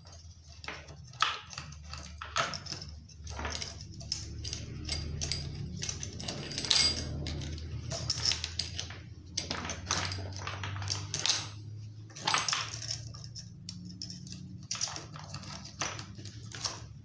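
Chainsaw chain clinking and rattling in irregular clicks and knocks as it is handled and fitted around the guide bar of a Husqvarna 137 chainsaw, over a steady low hum.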